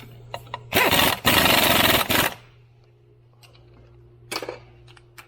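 A pneumatic tool runs in one burst of about a second and a half, with a short rising whine as it starts, while bolts are run in on the driveshaft. A single knock follows near the end.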